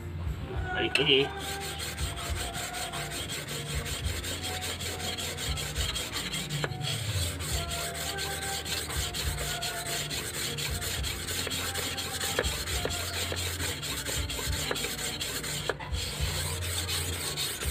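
An A88-steel golok blade scraped rapidly back and forth on a whetstone, making a steady gritty rubbing. There is a knock about a second in, then continuous strokes.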